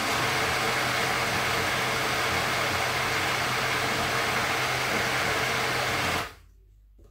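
Small personal blender running steadily, blending overripe banana and milk into a shake, then the motor cuts off abruptly about six seconds in.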